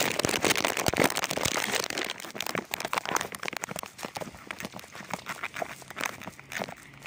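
Dense, irregular rustling and crackling, loudest in the first two seconds and fainter from about four seconds in.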